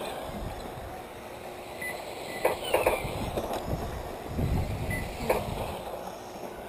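Radio-controlled dirt oval modified cars running laps on the clay track, a noisy mix of tyre and motor sound. A few sharp knocks come through, and a low rumble rises about two-thirds of the way in.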